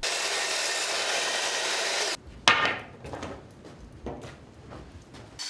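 Power saw cutting through wooden lath with a steady rush that cuts off suddenly after about two seconds. A sharp wooden knock follows, then a few faint knocks as the timber is handled. Right at the end a power drill starts to whir.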